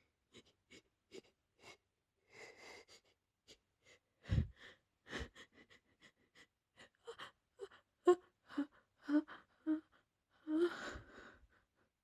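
A woman's sneeze fit: quick sniffs and breaths, two sudden stifled sneezes about four and five seconds in, then a run of short gasping in-breaths building up to a louder sneeze let out near the end.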